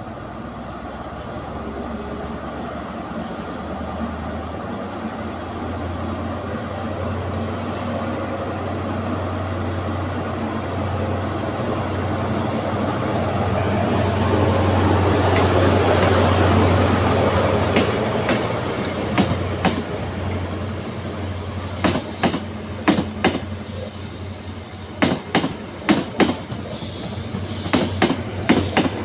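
Class 43 HST power car's diesel engine drone as the train pulls out, growing louder as the power car passes close by about halfway through. The coaches then roll past with a run of sharp, rhythmic clicks of their wheels over the track joints.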